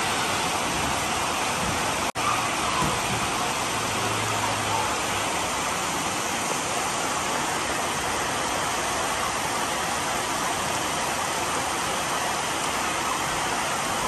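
A steady, even hiss like falling rain, cutting out for an instant about two seconds in.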